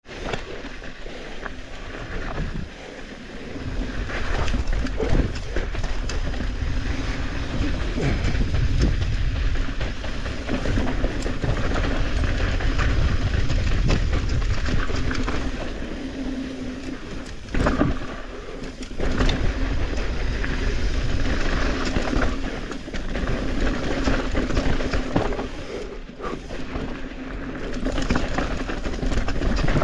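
Mountain bike descending a dirt trail: tyres on loose dirt and rock and the bike rattling over the bumps, with a steady low rumble that swells and eases with speed.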